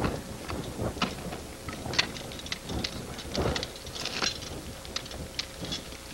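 Ice-climbing tools chipping and scraping at glacier ice: irregular short crunches and clicks, with a couple of heavier crunches in the middle, over a steady hiss.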